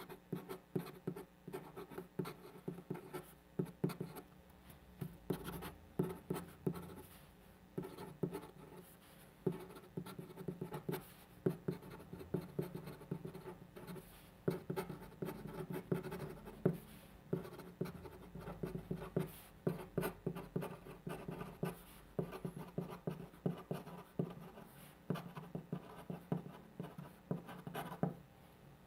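A pen writing on paper by hand: many short strokes in quick irregular runs, with brief pauses between them.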